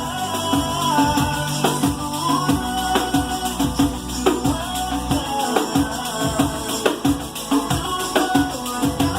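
Pandeiro, the Brazilian jingled frame drum, played in a fast, steady, dense rhythm over music with sustained bass notes and a melody.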